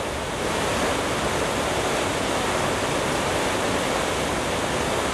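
Heavy rain pouring down, a dense, steady hiss.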